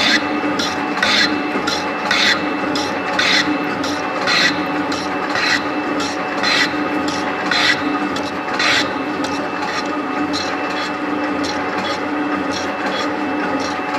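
A 7305T metal shaper running, a steady machine hum with a scraping rasp on each stroke of the ram, about once a second. The rasps grow fainter about two-thirds of the way through.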